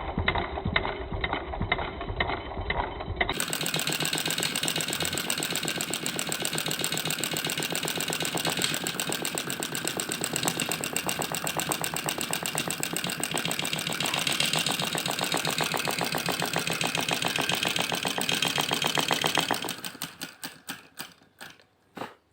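Homemade flame licker (vacuum) engine running with a fast, even clatter of its piston and flame valve. Near the end the beats drop off and slow to a few spaced knocks as it coasts to a stop.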